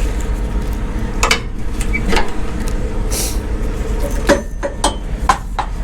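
Semi truck idling with a steady low rumble while metal parts clink and knock several times, with a short hiss of air about three seconds in.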